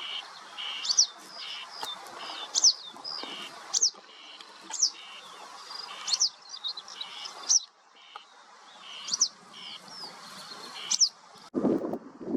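A small bird calling over and over: a sharp, high, downward-sliding note about once a second, mixed with shorter chirps. Near the end the calls stop abruptly and wind rumbles on the microphone.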